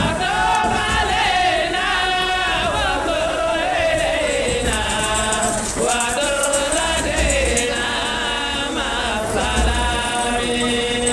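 Voices chanting a melodic chant, with long held notes that glide up and down.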